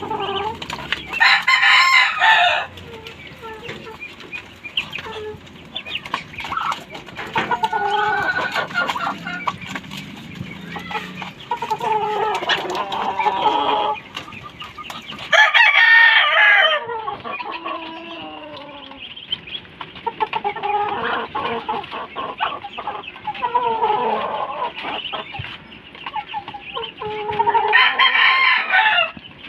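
A rooster crows three times, about once every 13 seconds, with chickens clucking in between.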